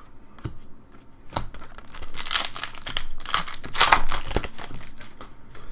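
Foil wrapper of an Upper Deck Full Force hockey card pack crinkling and tearing as it is opened by hand: a run of crackly rustles starting about a second in, loudest in the middle.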